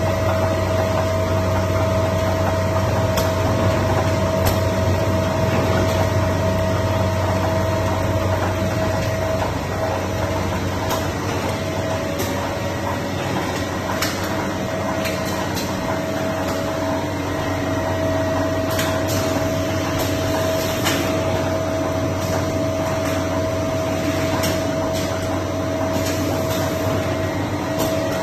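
Automatic steamed-bun production line machinery running steadily, with a constant hum and a steady whine and scattered sharp clicks or knocks.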